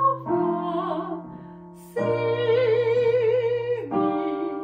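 A soprano voice singing sustained notes with wide vibrato over held piano chords. The harmony moves on to a new chord about every two seconds, stepping through the exercise's accompaniment chord by chord.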